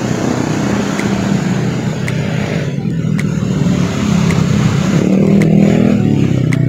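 Road traffic passing close by: motorcycle and car engines running, the sound swelling over several seconds.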